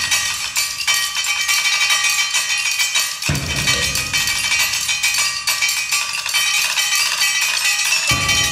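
Percussion quartet playing a fast, driving ostinato of mallet strikes on keyboard percussion, with ringing metallic pitches over the clatter. Two deep drum strokes fall about three seconds in and near the end.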